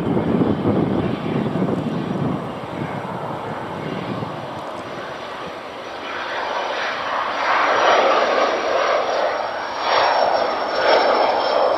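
Business jet's twin rear-mounted turbofan engines at takeoff power during the takeoff roll. A low rumble fades over the first few seconds, then the engine roar grows louder, with a steady high whine on top.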